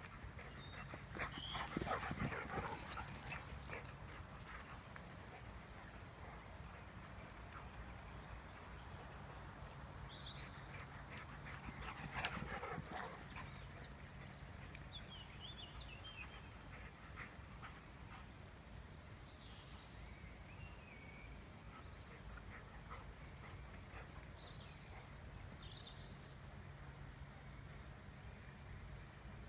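Dogs barking as they chase each other in play, in two short flurries: about two seconds in and again around twelve seconds in.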